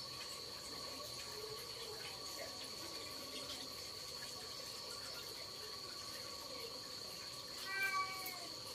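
Steady, even chirring of night insects. About eight seconds in comes one short, high, slightly falling call from a pig-tailed macaque.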